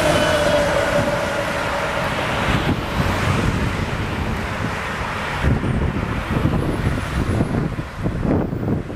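Volvo B10 diesel city bus passing close by and pulling away, its engine tone falling as it goes and fading into road and traffic noise. Wind gusts on the microphone in the second half.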